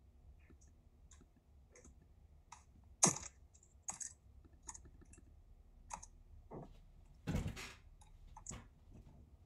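Scattered clicks from a computer mouse and keyboard, a few a second, with one louder click about three seconds in. Near the end comes a longer, louder rustling thump, like the desk or microphone being knocked.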